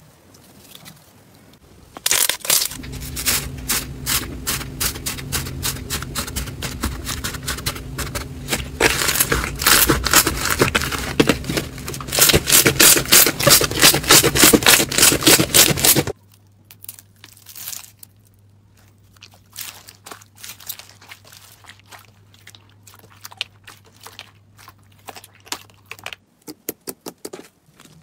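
Hands squishing, stretching and pressing slime, giving rapid sticky popping and crackling clicks. They are dense and loud from about two seconds in until past the middle, then turn sparse and quieter.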